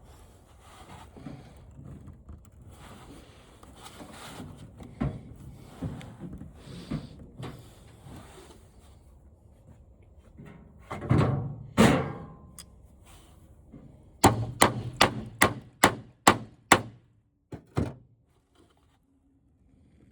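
Handling and rustling of parts from a flat-screen TV being dismantled. A little past halfway come two louder scraping knocks, then a quick run of about nine sharp taps, roughly three a second: a hammer tapping to loosen a stuck part.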